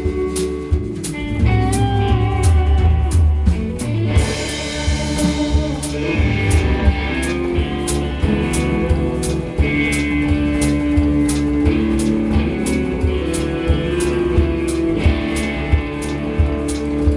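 Live band jam: guitar playing sustained notes over bass, with a drum kit keeping a steady beat.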